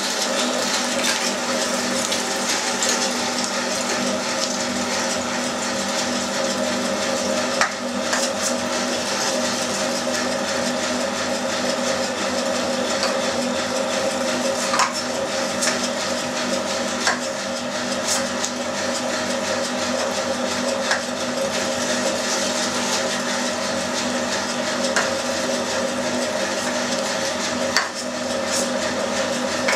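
Electric meat grinder running steadily under load, its motor giving a constant hum as fatty pork is pushed through it onto the finest plate. A few sharp knocks sound over the hum.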